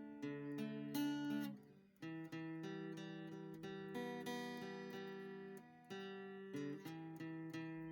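Background music of plucked acoustic guitar, notes picked out one after another with a brief pause about two seconds in.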